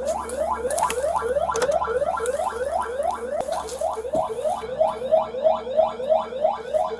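Electronic burglar alarm siren sounding inside a building and heard from outside. It gives a rapid, steady train of rising whoops, about four a second, and grows louder near the end. The alarm has been tripped.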